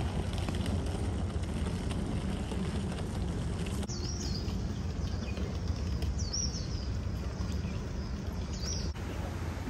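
Outdoor ambience of a steady low rumble, with a bird giving three short chirps in the second half, each a quick rising-and-falling note.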